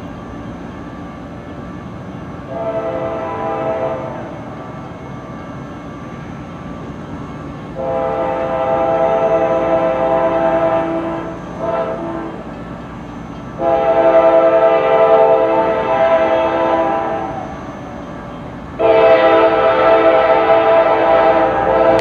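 K5LA air horn on CSX C40-8W locomotive #7790 sounding a series of chord blasts: a shorter one about three seconds in, then long blasts at about eight, fourteen and nineteen seconds, with a quick short toot between the first two long ones. The approaching freight train's rumble carries on underneath.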